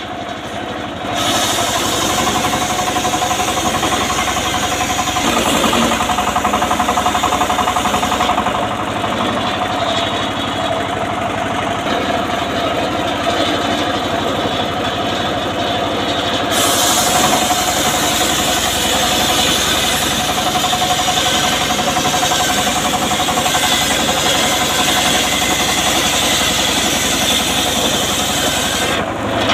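Homemade engine-driven circular saw bench running while its blade rips a teak log lengthwise into boards: steady engine running under a constant blade whine. The sound changes abruptly a few times.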